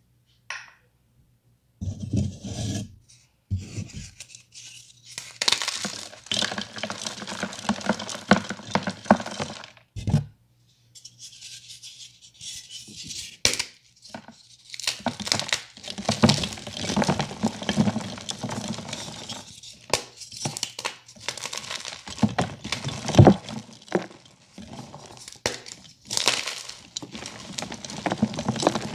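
Blocks of blue-dyed gym chalk being crushed and crumbled by hand: dry crunching, scraping and crumbling in dense clusters with short pauses, starting about two seconds in, with a few sharper knocks as pieces break.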